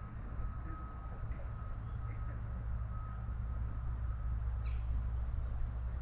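Outdoor ambience: a steady low rumble with a thin high tone that comes and goes, and a few faint short bird chirps.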